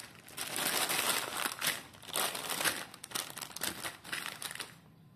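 Clear plastic polybags full of loose toy building bricks being handled and laid out, crinkling with many small clicks. The sound is loudest in the first three seconds or so and gets quieter near the end.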